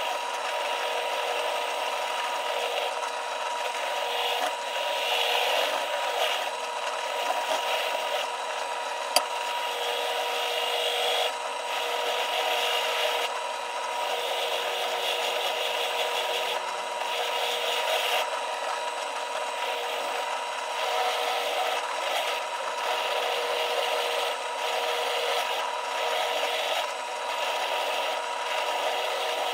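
Wire wheel brush spinning in a drill press, scrubbing rust off a ball peen hammer head: a steady motor hum under a harsh scratching that swells and eases as the head is pressed and turned against the bristles. A single sharp click about nine seconds in.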